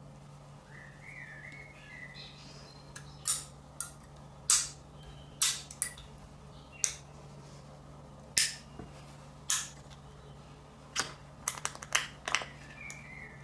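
Neodymium ring magnets clicking sharply against each other as they are handled and stacked onto a plastic tube: about a dozen single clacks, bunched into a quick cluster near the end. A faint high chirping comes about a second in and again near the end.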